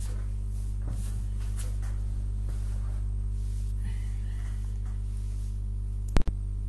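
Steady low electrical hum with several evenly spaced overtones, with faint handling rustles; a sharp click with a momentary dropout about six seconds in.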